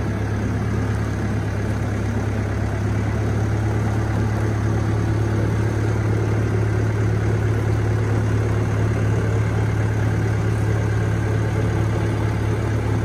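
Telehandler's diesel engine running at a steady speed as the machine moves slowly under load, a constant low drone with no revving.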